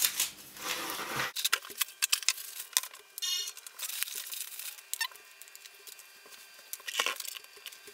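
Clear plastic packaging rustling as things are moved about on a desk, loudest in the first second, then scattered light clicks and taps, with a brief squeak about three seconds in.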